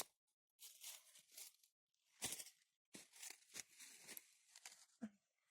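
Faint, irregular rustling and crackling in short bursts a fraction of a second long.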